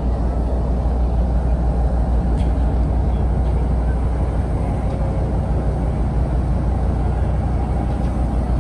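Steady, deep rumble of a large car carrier's engines and propellers as the ship gets under way.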